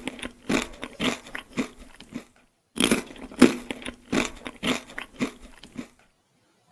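A person chewing crunchy food: loud crunches, about two a second, in two bouts with a short pause a little over two seconds in, stopping about six seconds in.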